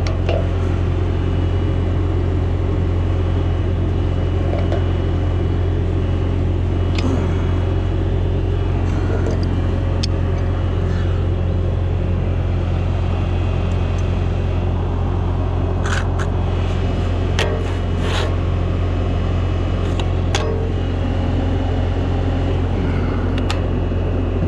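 Skid-steer loader's engine idling steadily, a constant low drone. Over it come a few sharp clicks and knocks from hand work on the hoop pole's base-plate bolts, mostly in the second half.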